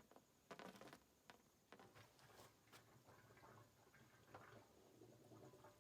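Faint, irregular bubbling and popping as compressed air from the tractor tire is blown through a hose into a barrel of calcium chloride solution, over a faint steady low hum.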